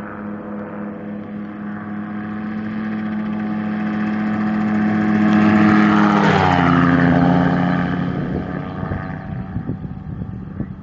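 Gyrocopter engine and pusher propeller flying low past: the steady engine note grows louder as it approaches, drops sharply in pitch about six seconds in as it passes, then fades as it flies away.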